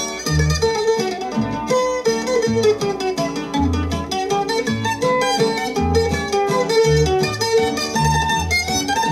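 Instrumental break in a country comedy song: a fast plucked mandolin lead over acoustic guitar and bass, played from a vinyl LP.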